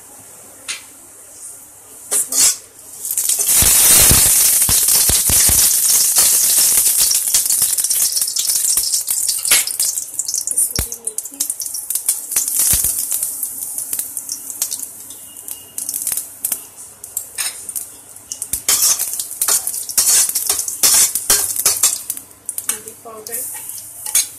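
Bay leaf and other whole spices for a tadka frying in hot oil in a kadhai. A loud sizzle starts about three seconds in and carries on, easing off later, with scattered clinks of utensils against the pan.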